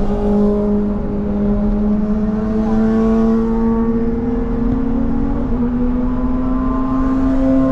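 Highway traffic noise heard from inside a moving car, with a steady engine note that slowly rises in pitch. A motorcycle weaving through traffic passes close alongside on the right.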